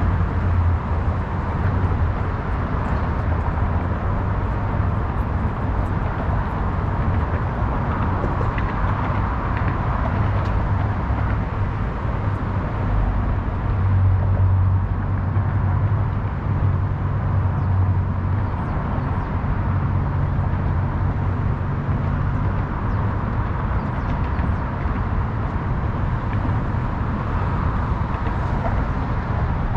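Steady traffic noise from the FDR Drive highway, a continuous low rumble with a faint steady hum, swelling slightly about halfway through.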